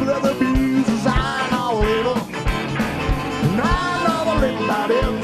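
Southern rock band playing live: fiddle and electric guitar over drums, with a steady kick drum beat about every two-thirds of a second and sliding melodic lines on top.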